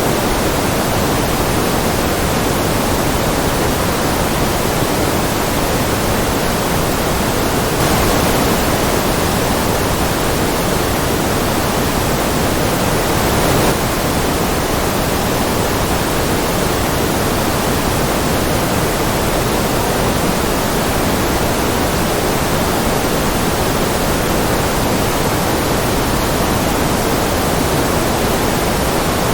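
Steady synthetic noise with a smooth hiss, weighted toward the lower pitches like pink noise, with no rhythm or events.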